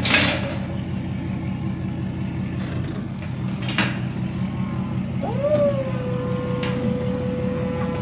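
Tractor engine running steadily while a round bale is set into a bale ring, with a sharp clank at the start and a few lighter knocks. About five seconds in, a steady high whine rises up and holds.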